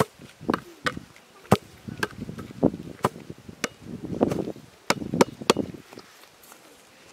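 A soccer ball being bounced off a person's head and hands: a string of sharp thumps, about two a second, that stops about six seconds in.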